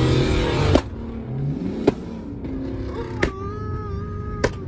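Car engines idling with a steady low rumble, broken by a few sharp clicks and faint pitched sounds like distant voices or music.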